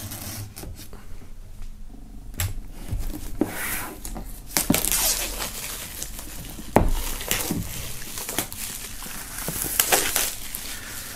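Plastic shrink wrap being torn and peeled off a cardboard box, crinkling on and off with several sharp ripping sounds.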